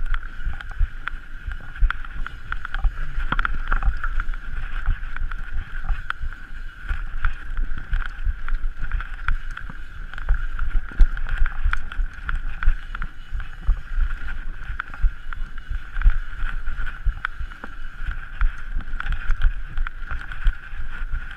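Mountain bike ridden fast down a rough trail: a steady high buzz over a constant rumble with many small knocks and rattles from the bike over the ground, and wind on the microphone.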